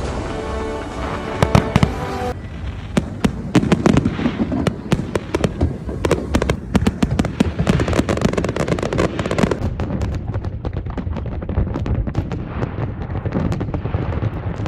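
A fireworks display going off: a dense, rapid stream of sharp bangs and crackles with deep booms underneath. For the first couple of seconds it plays under music, which then cuts out.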